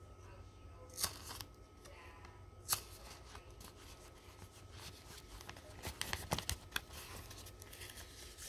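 Baseball cards being slid into a clear plastic binder sleeve: soft rustling and crinkling of the plastic pocket, with short sharp scrapes about a second in, near three seconds in, and a cluster past the middle.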